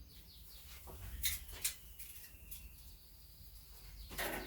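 Faint bird chirping with thin high whistles, over a few sharp clicks and knocks from handling things at the grill, about a second in, again half a second later and near the end.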